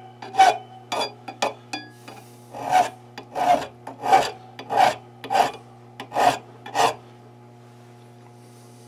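Triangular metal hand file rasping across the inside bow of a cast trigger guard, knocking off casting scale. A few short scrapes are followed by about seven strokes in an even rhythm, roughly three every two seconds, which stop about two-thirds of the way through.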